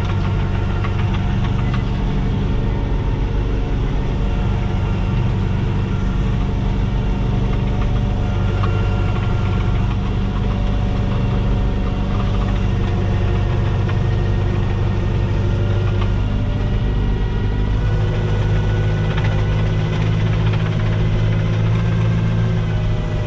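Fendt Farmer 410 Vario tractor's four-cylinder diesel engine running steadily at an even speed.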